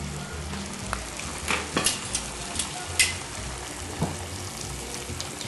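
Churro dough sizzling and crackling as it fries in hot oil in an electric deep fryer, with a few sharp clicks of metal tongs against the fryer about two and three seconds in.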